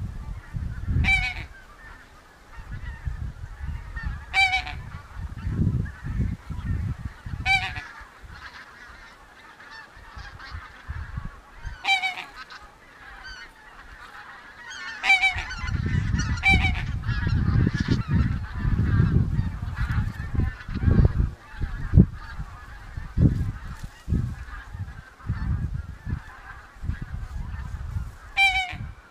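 Goose honks, single short calls every few seconds, over a faint steady background chatter and an irregular low rumble.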